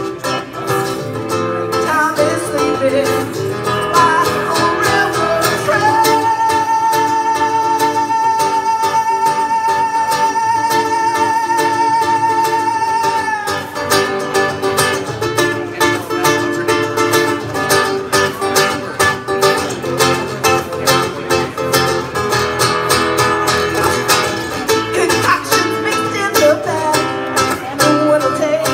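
Acoustic guitar and a woman's singing voice performed live through a PA. About six seconds in she holds one long note with vibrato for roughly seven seconds, and the guitar carries on under it.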